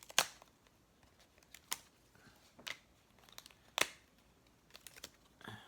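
Small plastic and cardboard robot-kit parts being handled: a few sharp clicks about a second apart, with light rustling of cardboard between them.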